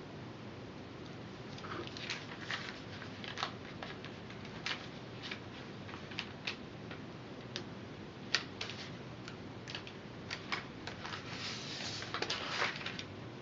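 A craft knife blade cutting through a sheet of barley straws, giving irregular sharp clicks and crackles as it cuts across the straws. A denser burst of crackling comes near the end as the straw sheet is lifted and handled.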